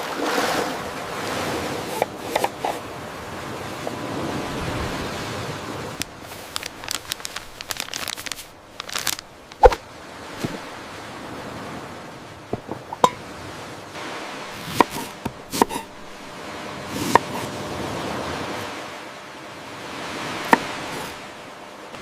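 Steady rush of ocean surf and rain, swelling and easing, with scattered sharp taps and clicks from about six seconds in.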